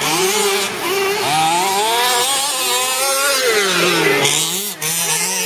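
Small two-stroke engine of a radio-controlled off-road car revving up and down as it drives the track, its pitch rising and falling again and again.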